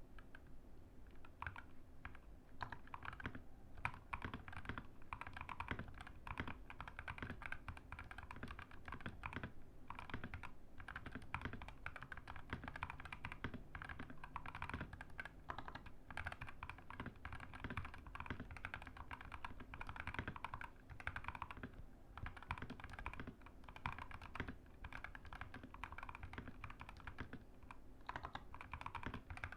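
Mechanical keyboard with Gazzew Boba LT linear switches being typed on steadily and fast, a dense stream of keystrokes with the deep "thock" these switches are known for, broken by a couple of short pauses.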